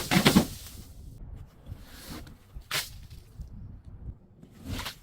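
Objects being crushed: a dense burst of crunching and crackling at the start, then a few separate cracks and crunches, one about two seconds in, one near three seconds and one near the end.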